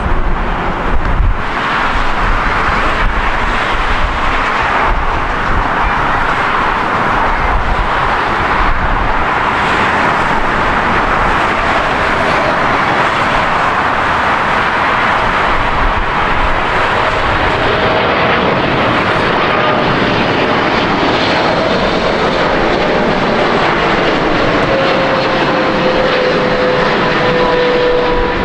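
Jet engines of Boeing 777 airliners. A deep rumble comes in the first second or so as a 777 touches down on a wet runway. Then the steady noise of a Boeing 777F freighter's GE90 engines on landing approach, with a whine that slowly falls in pitch during the second half.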